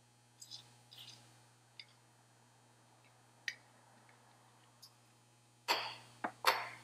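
Short hisses from an aerosol can of cutting oil sprayed onto a reamer bit held in a cordless drill, with a few small clicks between them. Near the end come three louder bursts of hiss in quick succession.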